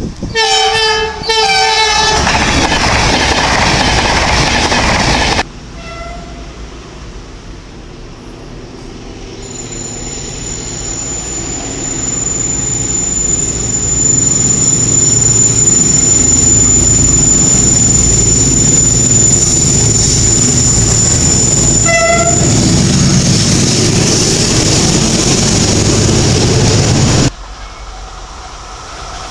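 Trains sounding their horns and passing at speed. A two-tone horn blast near the start as a train goes by. After that, another train approaches with a high steady whine, gives short horn toots and rushes past with wheels clattering on the rails.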